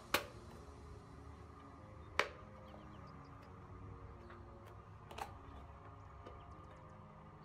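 Three sharp plastic clicks, spaced about two and three seconds apart, as a new coiled heating element is pressed into the plastic clips of a Lorenzetti Ducha Fashion electric shower. The first two clicks are the loudest.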